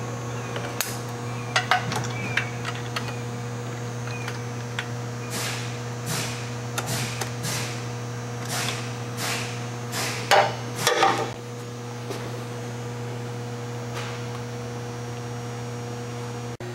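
Ratchet wrench on an extension clicking through a series of strokes as it backs the nuts off a clutch slave cylinder's mounting studs. Its loudest moment is a metal clatter with a short ring about eleven seconds in. A few sharp clicks come at the start, over a steady electrical hum.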